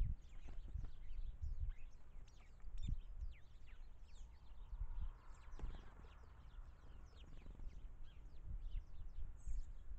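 Small songbirds chirping and calling around a bird table: a constant stream of short, high, falling notes from several birds, over intermittent low thumps and rumble.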